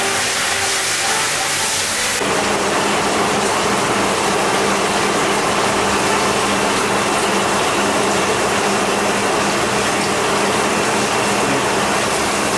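Water spraying steadily from a handheld shower head onto a wet poodle's coat and into a tub. Music plays over it for the first two seconds or so, then stops abruptly and the spray goes on alone.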